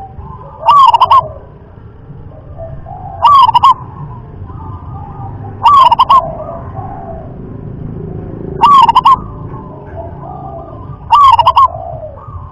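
Zebra dove (perkutut) singing its cooing song: five loud, short phrases about every two and a half seconds, with fainter calls between them.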